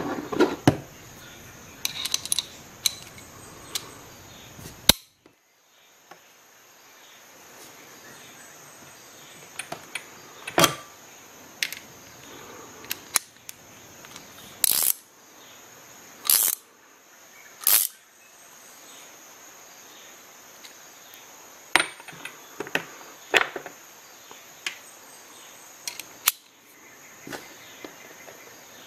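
Metal hand tools being handled: scattered clicks and clinks of chrome sockets, an adapter and a ratcheting ring wrench. Three louder sharp clacks come in the middle.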